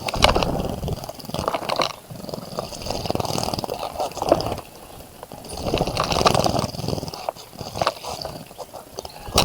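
A bird bathing in a bird bath, splashing water and fluttering its wings in a few irregular bursts of a second or two each.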